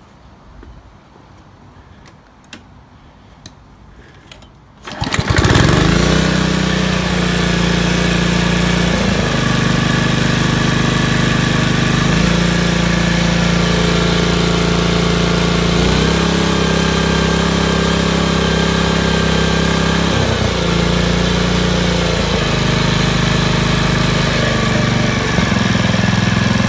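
Honda HRC216 commercial lawnmower's single-cylinder engine starting about five seconds in and then running loud and steady, its speed stepping up and down several times. The engine's governor has been adjusted so that it runs at a higher rpm.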